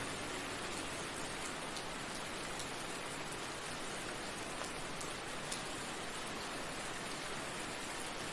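Steady rain falling, an even hiss with occasional faint drop ticks.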